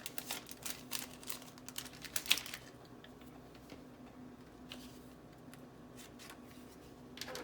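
Paper jewelry cards being handled: a quick run of light clicks and rustles over the first two and a half seconds, then only a few faint ticks.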